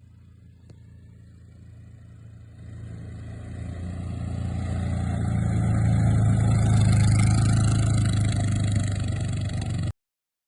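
A vehicle engine running at a steady pace and growing steadily louder as it comes closer, then cutting off abruptly near the end.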